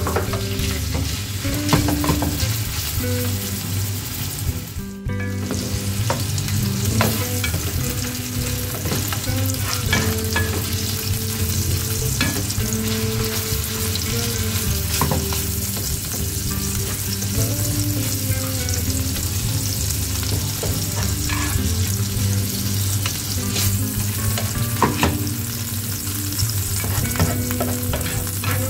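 Minced meat and fried onions sizzling steadily in hot oil in a non-stick frying pan, stirred and broken up with a spatula that scrapes and taps against the pan bottom many times. The sizzle dips briefly about five seconds in.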